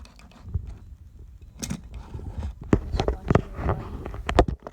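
Handling noise: irregular knocks, clicks and thuds. They start sparse and grow busier from about a second and a half in.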